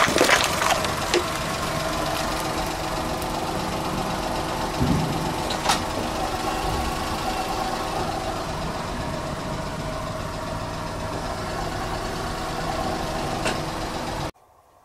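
Car tyre rolling over liquid-filled plastic bottles, the plastic crackling and crunching in the first second. After that the car's engine idles steadily, with a stray click or two, until the sound cuts off suddenly near the end.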